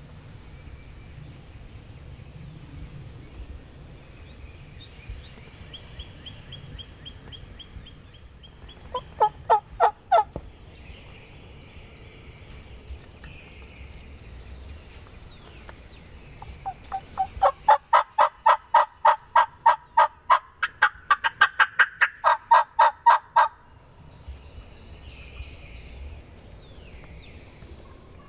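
Wild turkey calling: a short rattling call about nine seconds in, then a long run of loud, evenly paced yelps, about four a second for some seven seconds, stepping up in pitch midway.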